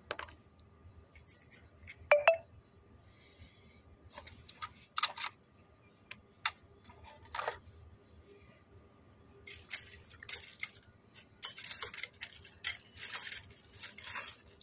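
Metal hand tools and small parts clinking and jangling as they are handled, with a sharp knock about two seconds in and a denser run of jingling rattles in the last few seconds.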